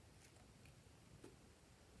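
Near silence, with a few faint clicks of plastic toys being handled.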